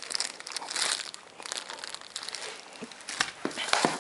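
Plastic packaging crinkling and rustling as it is handled, with sharper crackles near the end.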